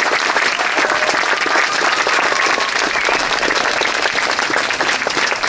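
Outdoor audience applauding steadily: a dense mass of hand claps.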